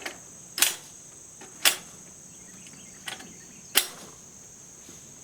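Five sharp metallic clicks and clacks, unevenly spaced, from a Swiss Vetterli rifle's action being handled, over a steady high chirring of crickets.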